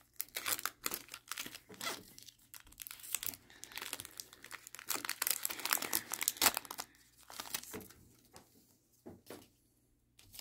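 Foil wrapper of a Pokémon card booster pack crinkling and tearing as it is ripped open by hand. The crackling thins out about seven seconds in, leaving a few short rustles as the cards come out.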